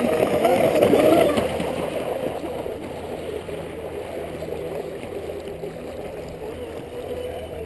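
Brushless electric RC speedboat running at speed across the water, its motor whine wavering in pitch; loudest about a second in, then fading as the boat moves farther off.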